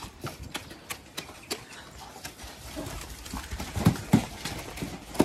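Horses' hooves stepping and shuffling over straw-covered ground in a scatter of irregular knocks, with two heavier thuds about four seconds in.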